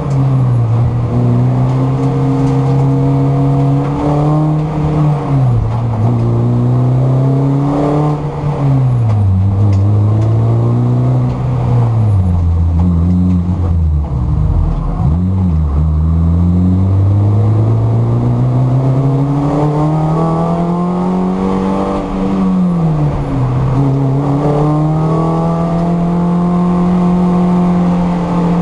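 Mini Cooper race car engine heard from inside the cabin at racing speed. The revs climb steadily and drop away again several times. They fall lowest about halfway through, with one quick blip, then climb again and hold steady near the end.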